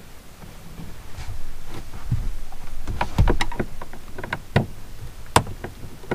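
Small clicks and knocks of hands working on a wall-mounted solar charge controller and its wiring, scattered unevenly through the second half, with the sharpest click about five seconds in.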